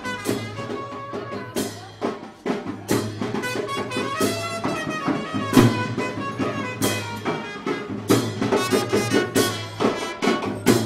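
Bangladeshi brass band playing a live wedding tune: horns carrying the melody over repeated drum and cymbal beats.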